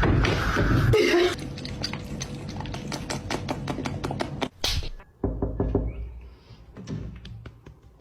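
A quick, irregular series of knocks, several a second, following about a second of loud noise.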